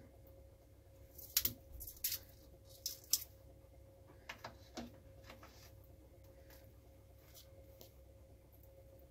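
Hard lobster shell pieces clicking and tapping against a frying pan as they are laid in, a few sharp clicks in the first five seconds, over a faint steady hum.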